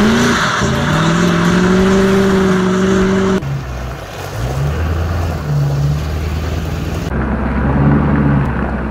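A car engine revving, its pitch climbing and then held high. After a sudden cut about three and a half seconds in, a pickup truck engine runs at lower revs, rising and falling, as it pulls a loaded car trailer.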